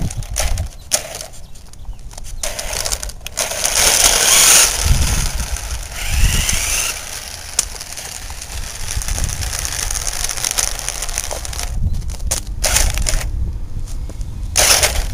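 Footsteps crunching on gritty asphalt, with uneven low rumbling on the microphone.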